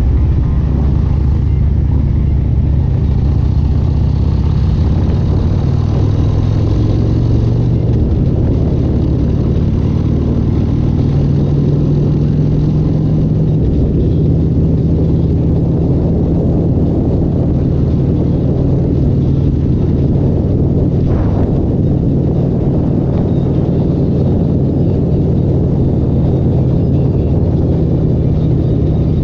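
A loud engine running steadily at a low, even pitch, holding its speed with only small rises and dips in pitch.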